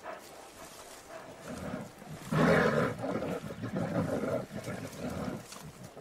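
Brown bears growling and roaring. A loud rough burst comes about two seconds in, followed by more pulsing growls.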